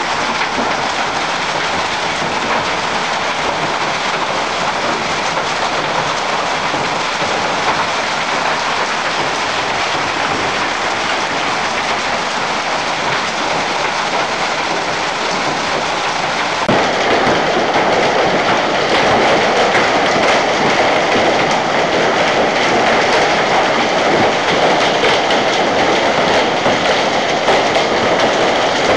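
Hailstorm: hailstones and heavy rain pelting roofs and the ground, a dense, steady clatter. It gets louder about 17 seconds in.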